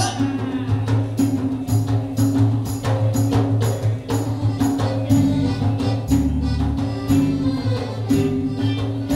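Live Malay ronggeng ensemble playing an instrumental passage: frame-drum beats over sustained low notes and a melody line.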